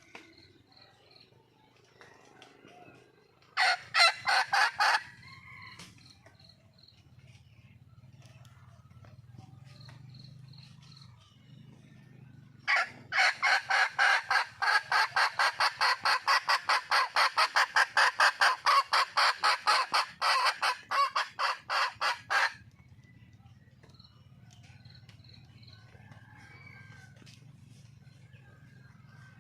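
Red junglefowl hen calling in a rapid, pulsed cackle: a short burst of about six notes about four seconds in, then a long run of evenly repeated notes, about four a second, lasting some ten seconds.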